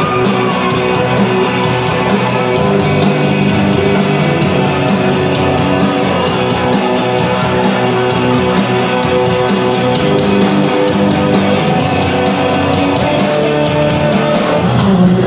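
Loud rock music with guitar, playing without a break.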